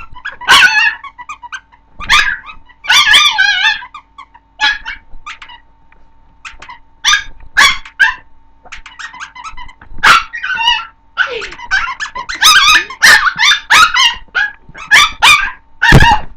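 Chihuahua puppy barking at a toy: high-pitched yips in irregular bursts, some quick runs of several barks, with gaps of a second or two between volleys.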